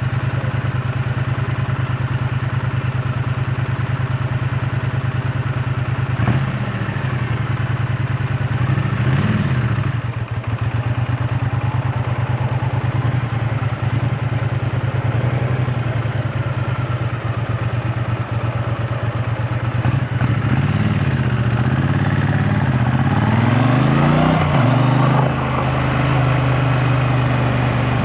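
2024 Triumph Bonneville T100's 900 cc parallel-twin engine running under way, heard from on the bike. Its steady note rises and falls in pitch a few times with changes in throttle.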